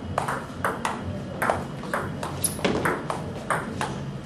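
Table tennis rally: the ball clicks sharply off the bats and the table in a quick, fairly even run of about three hits a second.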